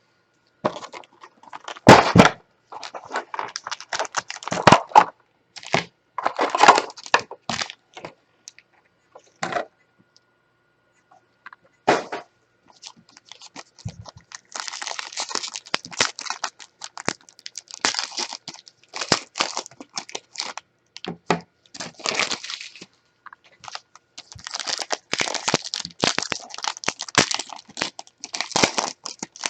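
A shrink-wrapped trading card box being opened by hand: plastic wrap and wrapper crackling and tearing in irregular bursts, with a few sharp cracks.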